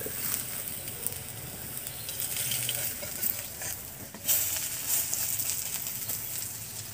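Pumpkin-flower fritters sizzling steadily in hot oil in an iron kadai, with scattered clicks as a metal spatula presses them. About four seconds in there is a sharp crack and rustle of dry firewood sticks being handled.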